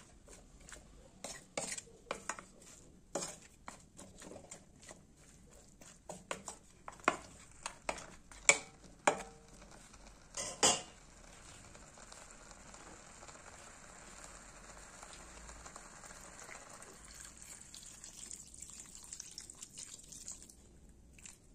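Wooden spatula knocking and scraping against a steel wok while stirring fish, tomatoes and fermented bamboo shoot, in many sharp knocks for the first ten seconds or so. Then water is poured into the wok in a steady stream for about ten seconds, stopping suddenly near the end.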